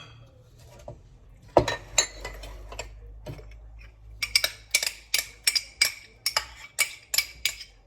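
Spoon clinking against small dishes and the pot as ginger and garlic paste is knocked off into the raw mutton for a biryani marinade. A couple of knocks come first, then a quick run of about a dozen ringing clinks, about three a second, in the second half.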